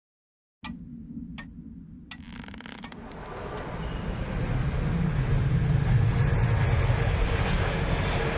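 A few sharp clicks, then a low rumbling noise that swells over several seconds and grows loud. It is a sound-effect bed with no music or speech.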